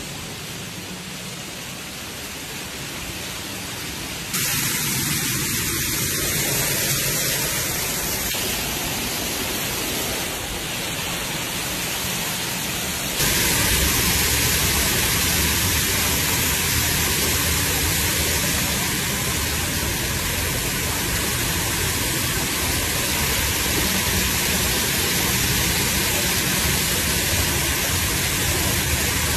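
Heavy water pouring and spraying through a collapsed ceiling into a flooded apartment: a steady rushing hiss that gets louder in two abrupt steps, about four seconds in and again about thirteen seconds in.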